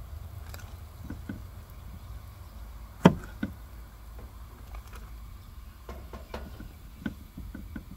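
Cleaver-style knife chopping mini sweet peppers on a wooden cutting board: scattered knocks of the blade on the board, the loudest about three seconds in, then a run of lighter taps near the end.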